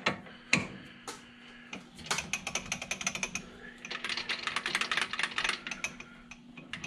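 Lathe carriage and tool post being wound in toward the chuck: two spells of rapid, dense gear clicking over a steady hum that starts about half a second in.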